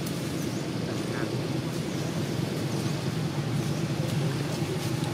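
Steady low outdoor background rumble, with a few faint, short high chirps now and then.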